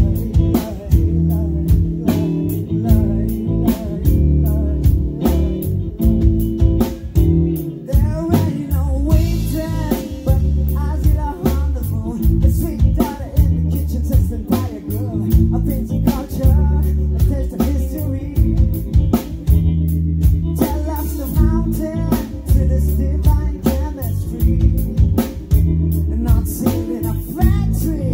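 Live band playing an upbeat soul-funk groove: electric guitar, bass and drum kit keeping a steady beat, with saxophone and a singer's voice over the top.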